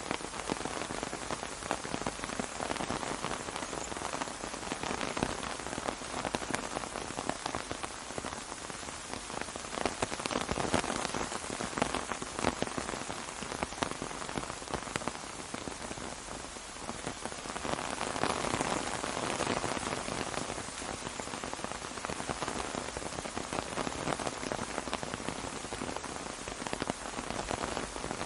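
Steady rain falling on an umbrella, a dense patter of drops that swells and eases slightly every few seconds.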